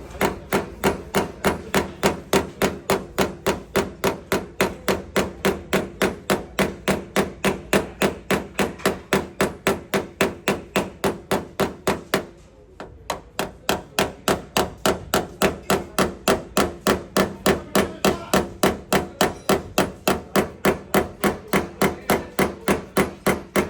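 Rapid, even hammer blows on sheet metal, about three to four a second, with a short break about halfway through; the metal rings with each strike, as in panel beating the damaged rear body of a car.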